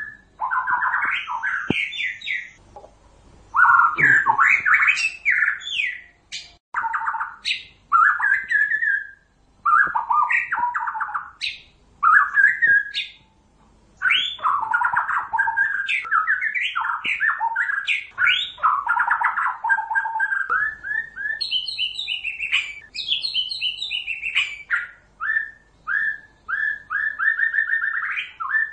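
White-rumped shama (murai batu) singing: a long run of varied whistled phrases with short pauses between them, rising higher about two-thirds of the way through and ending in quick series of short repeated notes.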